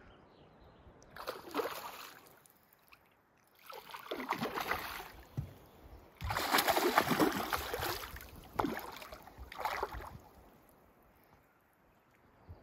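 Water splashing in several irregular bursts, the longest about two seconds: a hooked fish thrashing at the surface as it is reeled in.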